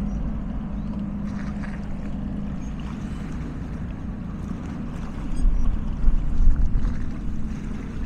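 Small waves lapping and splashing against shoreline rocks over a steady low rumble of boat engines on the water. The rumble swells louder for a second or two about five and a half seconds in.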